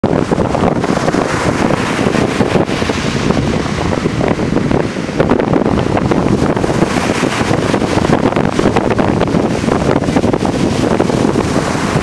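Large sea waves breaking and washing up a sandy beach in a continuous loud surge of surf, with wind rumbling on the microphone.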